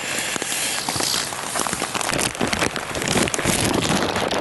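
Heavy rain pouring down: a dense steady hiss with many sharp drop taps mixed through it.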